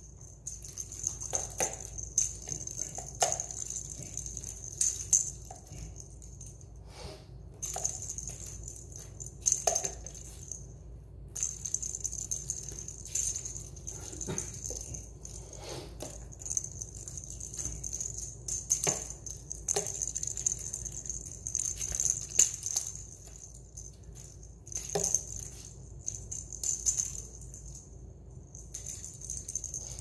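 Small toy ball rattling and clicking as an Indian ringneck parrot pushes it across a tile floor, with irregular sharp knocks as it bumps along.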